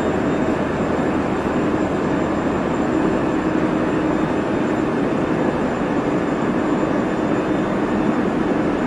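Running noise inside a JR Central 373 series electric train: a steady rumble of wheels on rail, with a faint steady high-pitched whine above it.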